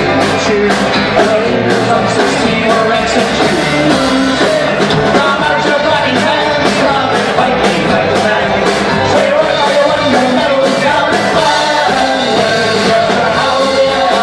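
Live Celtic rock band playing, with guitars, fiddle, banjo, bodhrán and drum kit over a steady beat, amplified through a PA.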